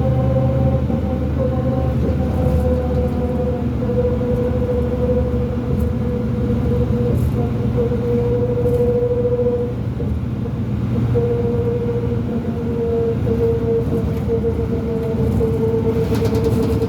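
2005 New Flyer D40LF transit bus under way with its Cummins ISL diesel running under load. Over the low engine rumble a steady whine, the bus's weird axle noise, drops out for about a second roughly ten seconds in, then comes back.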